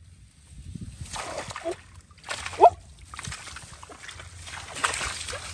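Hands sloshing and splashing in shallow muddy paddy water, groping through mud and rice stubble in irregular bursts. A short rising squeak about two and a half seconds in is the loudest moment.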